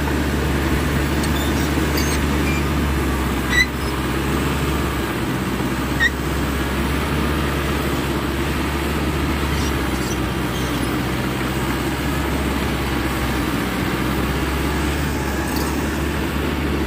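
Caterpillar crawler dozer's diesel engine running steadily under load as it cuts a hillside terrace with its blade, with two sharp clicks from the machine about three and a half and six seconds in.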